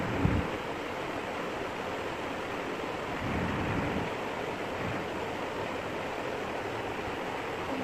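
Steady rushing background noise, with a brief low bump just after the start.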